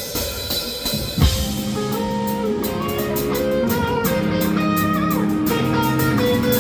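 Live band playing: held electric guitar chords over a drum kit, with a hard drum hit about a second in and steady cymbal strokes after it.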